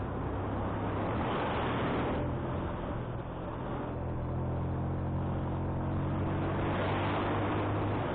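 Motorcycle engine running steadily under load on an uphill climb, with wind noise rushing over the microphone.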